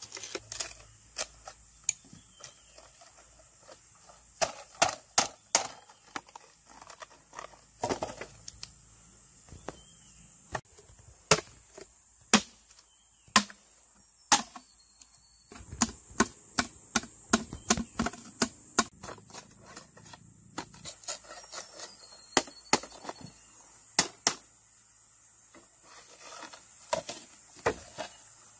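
Machete striking and splitting green bamboo: runs of sharp knocks and clicks as a bamboo tube is cut open, with bamboo tubes knocking together near the end.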